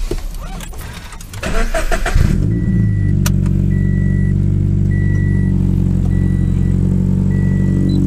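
Subaru BRZ's flat-four engine cranks and catches about two seconds in, then idles steadily. A high electronic chime from the car beeps about once a second over the idle.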